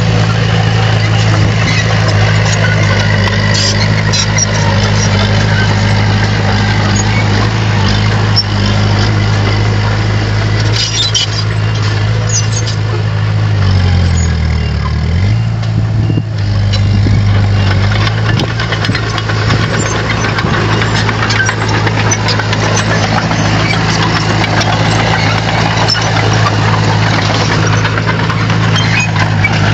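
Bulldozer diesel engine running steadily under work; about halfway through its revs dip briefly and come back up. Scattered clicks and clanks on top.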